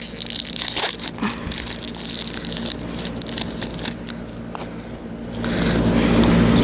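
Paper and plastic crinkling and scraping as trading cards and a pack wrapper are handled, with short clicks and rustles. Near the end, a car going by grows louder as a low rumble.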